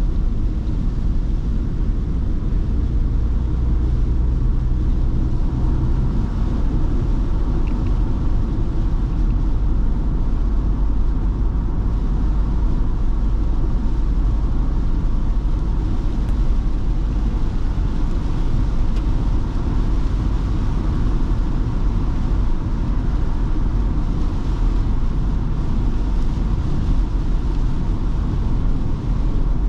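Ford Transit Custom diesel van driving in heavy rain: a steady, loud low rumble of engine and tyres on the wet road with an even hiss of rain over it. A low hum in the engine note drops away about six seconds in.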